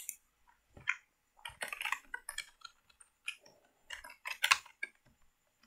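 Computer keyboard typing in short, irregular runs of key taps, with a few clicks mixed in.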